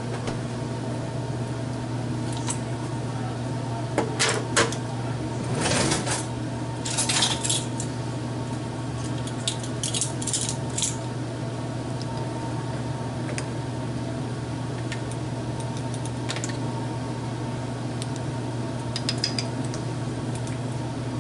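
Small glass jar of minced garlic being opened and a utensil clinking and scraping in it and against a plastic mixing bowl as the garlic is spooned out: scattered clicks and short scrapes, busiest in the first half, over a steady low hum.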